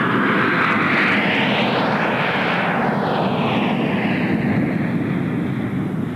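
Four McDonnell Douglas F-4 Phantom jets, with Rolls-Royce Spey turbofans, flying over in close formation with a loud, steady jet rumble. A sweeping whoosh rises and then falls as they pass overhead, and the noise eases slightly near the end as they climb away.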